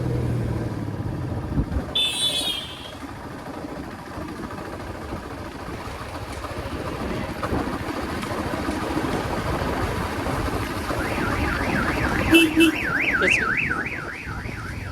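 Electronic vehicle alarm warbling, its pitch sweeping up and down about three times a second, starting about eleven seconds in and lasting three seconds or so. Under it runs the steady engine and road noise of the riding Royal Enfield Classic 350 motorcycle.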